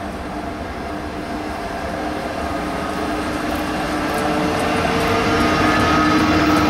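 Škoda class 162 electric locomotive pulling a passenger train out of the station and past, a steady hum with a few steady tones that grows louder as it draws near.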